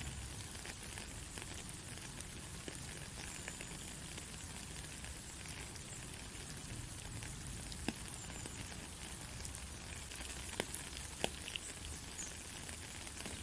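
Steady rain falling, an even fine hiss with a few sharper drop ticks in the second half.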